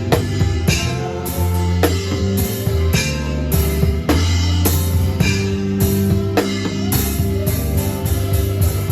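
Live band playing at a sound check: a drum kit keeping a steady beat with bass drum, snare and cymbals over held low bass notes.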